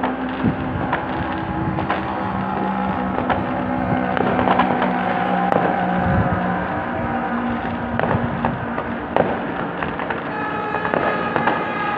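New Year fireworks going off in a dense, continuous barrage of crackling and many sharp bangs, heard through an old phone's microphone. A steady low hum runs under the first half and stops about halfway through.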